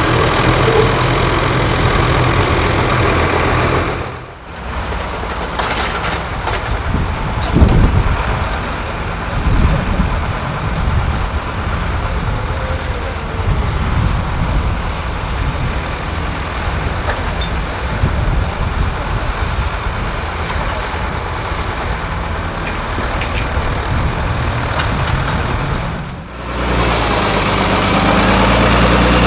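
Diesel engines of forestry forwarders running. First a Rottne Blondin forwarder idles steadily. After a brief dip, a more uneven stretch follows, with a loud knock about seven seconds in. After a second dip near the end, another forwarder engine idles steadily.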